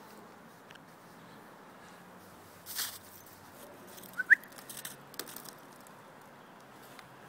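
A dog rooting about in snow, with quiet background. There is a brief crunching rustle near three seconds in, then a short, high rising chirp just after four seconds, the loudest sound, and a few light ticks after it.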